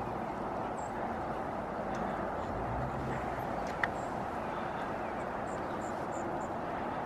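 Steady outdoor background noise, an even hiss and hum, with one sharp click a little before the middle and a few faint high chirps in the second half.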